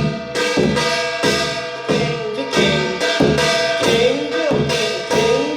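Kkwaenggwari (small Korean brass gong) struck in a slow, even rhythm, about two strokes a second, each stroke left ringing with a wavering metallic tone. The rhythm is the 'gaengji gaengji gaengji eogaeng' pattern of Korean shamanic ritual music.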